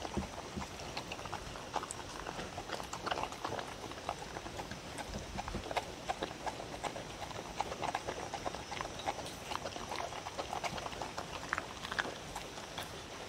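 A dog eating chopped carrot, bell pepper, watermelon, egg and meat from a wooden bowl: quick, irregular crunching and chewing with clicks of teeth and muzzle against the bowl.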